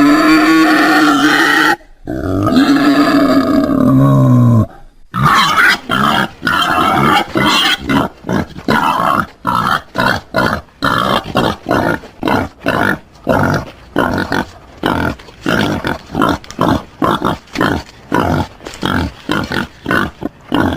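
Wild boar calling: two long, pitched, drawn-out calls, the second falling low at its end. Then a rapid run of short grunts, about two to three a second.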